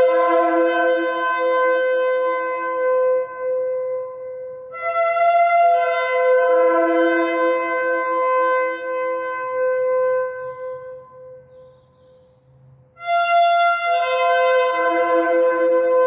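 Shofar blown in long blasts: one ends about four seconds in, a second fades out around eleven seconds, and a third starts about thirteen seconds in. Each blast opens on a higher note and drops to a lower held tone.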